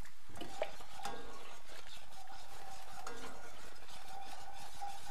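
Wire whisk repeatedly scraping and clicking against a cast-iron skillet, stirring stock into a thick butter-and-flour roux, over a light sizzle from the hot pan.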